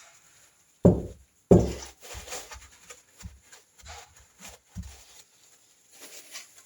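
Knocks and clatter of small parts and tools being handled on a workbench: two louder thumps about a second in, then lighter taps and knocks.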